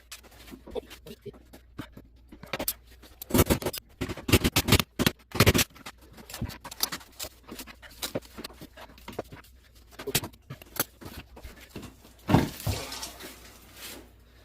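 Irregular knocks, clicks and scraping of hand work on a toilet flange, with a loud cluster of knocks about three to six seconds in and another sharp knock near twelve seconds.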